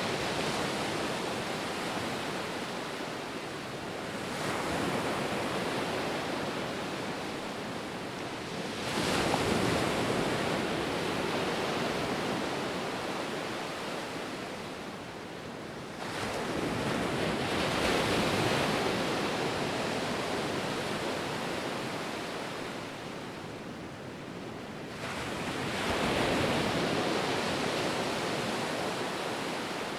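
Ocean surf: waves breaking and washing up one after another over a steady hiss. The wash swells about four times, every five to nine seconds, and each swell fades slowly.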